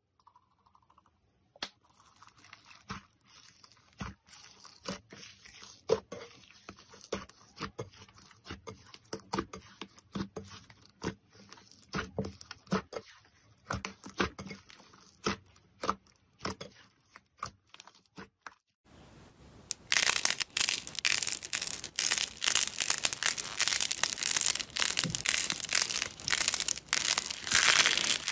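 Slime being kneaded and pressed by hand, making scattered wet clicks and pops. About two-thirds of the way through it changes to a louder, dense crackling as another slime is squeezed between the fingers.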